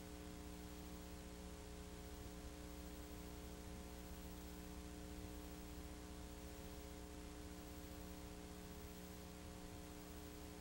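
Steady electrical hum with a faint hiss and no other sound.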